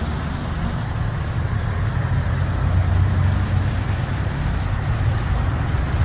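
Road traffic: a steady low rumble of engines and tyres that swells slightly around the middle.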